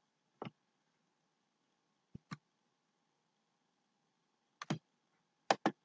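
Computer mouse clicking: a single click, then three quick pairs of clicks spread over a few seconds.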